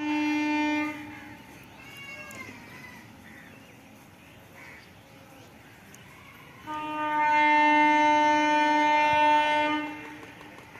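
Horn of an approaching WAG-7 electric locomotive: a short blast of about a second, then a long blast of about three seconds starting just before halfway through.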